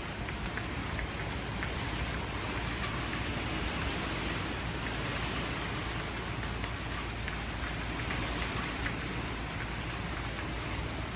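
Hurricane rain falling steadily: a constant hiss with scattered faint drop ticks.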